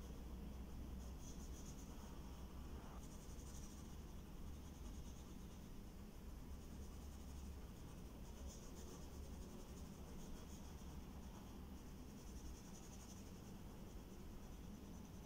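Pencil scratching on drawing paper in short, irregular strokes, faint, over a low steady hum.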